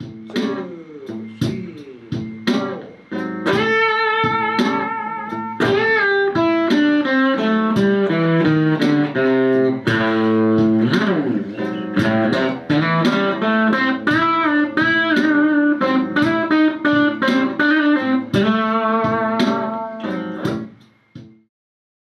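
Stratocaster-style electric guitar playing a single-note blues lead line in A minor pentatonic with the flat fifth worked in, using string bends and slurs. The phrase ends about a second before the close.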